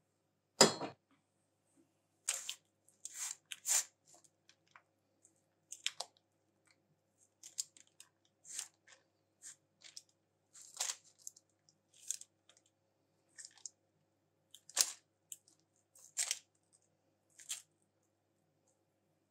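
Silicone spatula working thick chocolate cake batter in a parchment-lined cake ring: a sharp knock about half a second in, then a string of short, irregular scrapes and squelches as the batter is spread flat.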